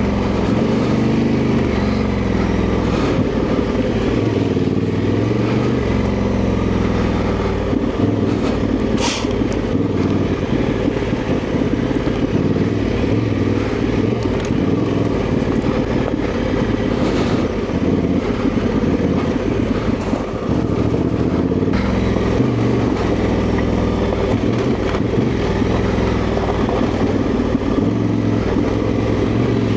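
Honda Transalp 750's parallel-twin engine running steadily while riding off-road, its pitch rising and falling with throttle changes. A sharp knock comes about nine seconds in.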